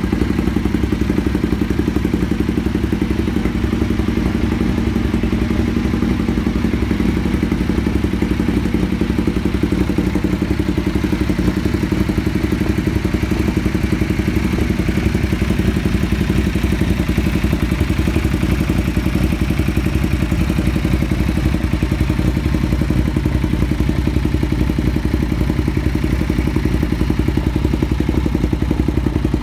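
Ducati Diavel's L-twin engine idling steadily through its new exhaust.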